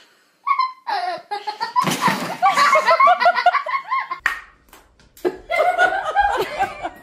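People laughing in two stretches, with a short break about four seconds in.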